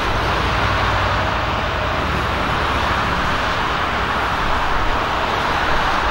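Boeing 747-400's four turbofan engines running as the airliner rolls along the runway: a steady, loud rush of jet noise over a low rumble.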